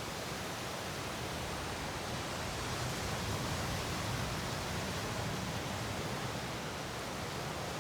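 Ocean surf breaking against rocks in a steady, continuous rush that swells a little midway.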